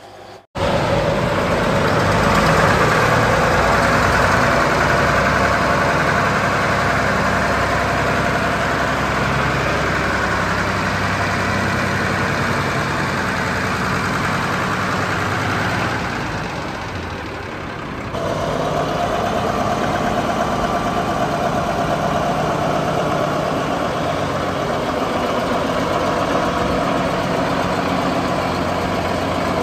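Fendt Favorit 610 LS tractor's diesel engine running steadily, with a brief dip in level about 17 seconds in.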